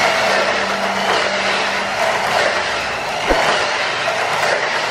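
Tamiya Mini 4WD car running laps on a plastic multi-lane track, its small electric motor whirring and its wheels and rollers rattling along the lanes and walls in a steady rush of noise. One short knock about three seconds in.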